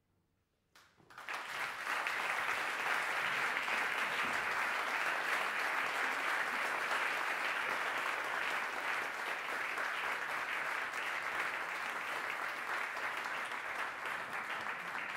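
Audience applauding, beginning suddenly about a second in after a brief hush, then dense steady clapping.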